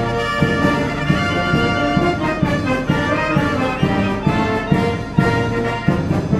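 Orchestral music led by brass, with a steady beat.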